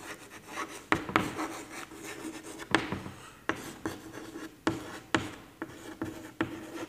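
Chalk writing on a blackboard: an irregular run of short scratching strokes and sharp taps as letters are written.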